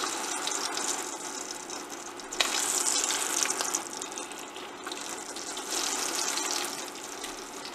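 Slices of luncheon meat sizzling steadily in hot oil in a stainless steel pan as they are pushed around with tongs, with a sharp click of the tongs against the pan about two and a half seconds in.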